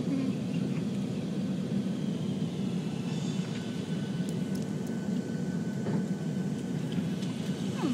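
Steady airliner cabin noise in flight: a constant low rumble of engines and rushing air, with a faint thin whine through the middle.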